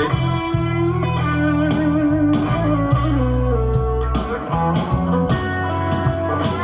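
Recorded blues-rock song playing back on a hi-fi system: an instrumental passage of electric guitar over a steady bass line, with regular percussive hits.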